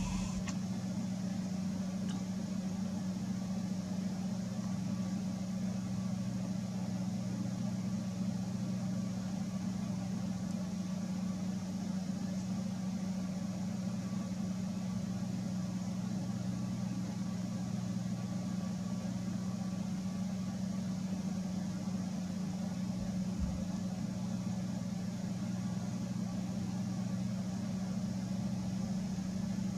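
A steady low mechanical hum that holds unchanged throughout, with a soft low thump about 23 seconds in. No woodpigeon cooing is heard.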